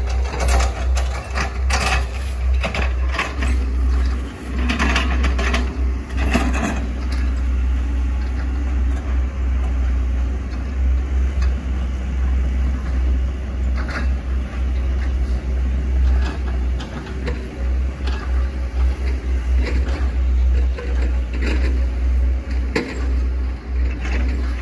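Hitachi ZX110 MF excavator running under load with a deep rumble, over which come repeated sharp cracks and knocks, thickest in the first few seconds, as the machine fells and chops up oil palm trunks.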